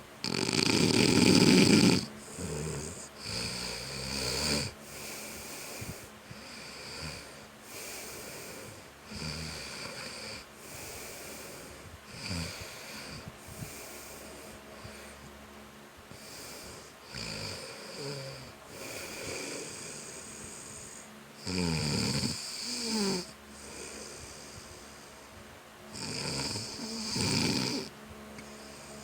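A person snoring while asleep: a loud snore near the start, softer snoring breaths every couple of seconds after it, and two more loud snores later on.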